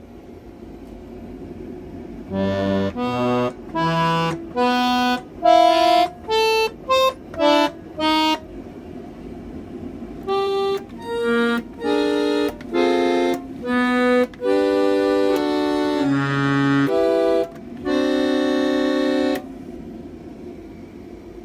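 Philharmonic Concert Master electric chord organ being played: a run of short separate notes and chords with gaps between them, then, from about ten seconds in, longer held chords, stopping a couple of seconds before the end.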